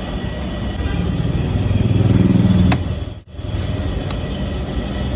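Street traffic rumble, with a motor vehicle engine swelling louder about two seconds in. The sound cuts out abruptly for an instant just past three seconds, then the traffic noise resumes.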